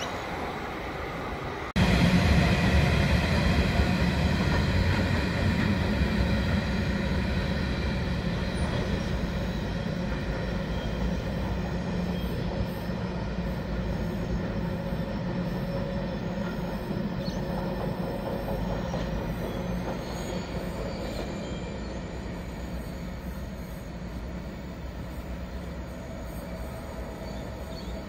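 Diesel-hauled coal train of hopper wagons rolling through on the curve, a steady rumble of wheels with squealing in several high steady tones over it. It comes in abruptly just under two seconds in and slowly fades.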